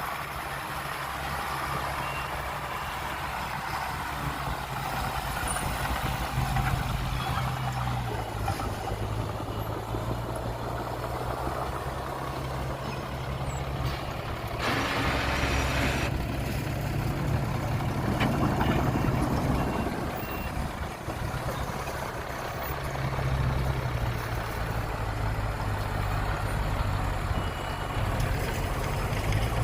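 Heavy diesel engines of earthmoving machinery running and changing speed under load, with a short hiss lasting about a second and a half around the middle.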